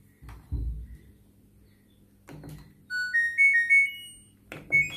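LG top-loading washing machine being switched on: a dull thump, a button click, then the machine's short rising power-on melody of electronic beeps, with one more beep near the end.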